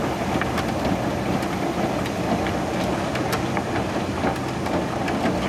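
Excavator-mounted ALLU screening bucket running, its rotating screen sifting soil that pours down into the trench, over the excavator's steady diesel engine. Scattered sharp clicks sound through the steady noise.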